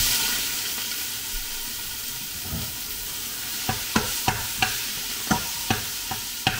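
Raw ground turkey dropped into hot olive oil in a pot, starting to sizzle all at once. From about halfway a utensil knocks against the pot about three times a second while the meat is broken up.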